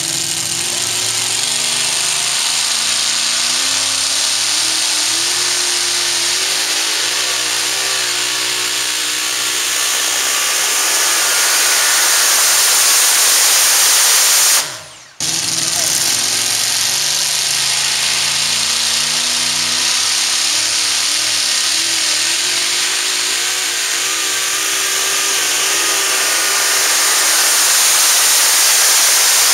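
Super modified two-wheel-drive pulling trucks at full throttle dragging a weight-transfer sled, their racing engines screaming at high revs with the pitch wavering up and down as the tires spin in the dirt. The sound cuts out abruptly about halfway, then a second truck's run follows.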